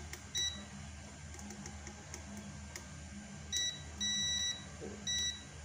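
Digital multimeter's continuity beeper sounding as the probes touch pins on an ECM circuit board: one short beep near the start, then three more about three and a half seconds in, the middle one of those longest. Each beep signals an unbroken connection to the board's 5-volt supply line.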